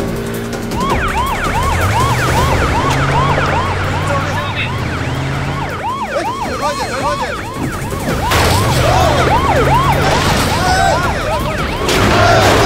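Emergency-vehicle siren on a fast yelp, sweeping up and down about four times a second, over the low drone of vehicle engines. Two louder, noisy surges come about eight seconds in and near the end.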